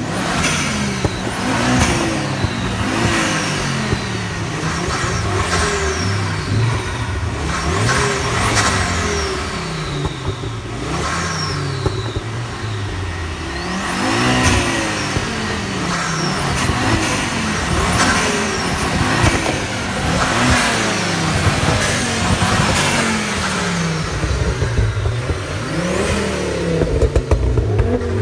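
Parked performance car engines revved again and again, the pitch climbing and dropping every second or so. Several high whistles fall in pitch along with the revs.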